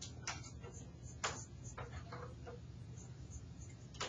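Graphite pencil scratching on drawing paper: several short, separate strokes, over a steady low hum.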